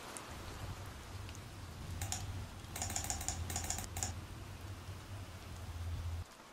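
Sound effect for a subscribe-button animation: a quick run of sharp computer clicks, like typing, about two to four seconds in. A low steady hum sits under it and cuts off suddenly near the end.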